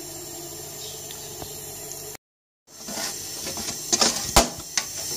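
Metal utensil knocking and clinking against a steel cooking pot as grated carrots are added to milk, several sharp knocks in the second half. Before that, a steady low hum.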